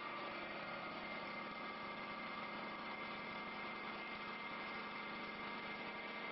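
CNC wood lathe running steadily: an even mechanical noise with a constant high whine held throughout.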